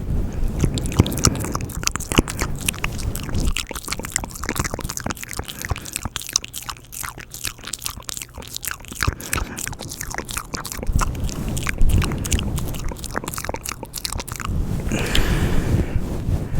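Close-miked ASMR mouth sounds: rapid, wet clicks and smacks of lips and tongue, with a breathy hiss about fifteen seconds in.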